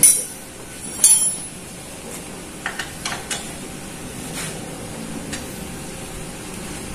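Hand tools clinking against the metal tubular crash bar as it is bolted to the motorcycle's lower frame: two sharp metallic clinks, one at the start and one about a second in, then a few fainter taps and clicks.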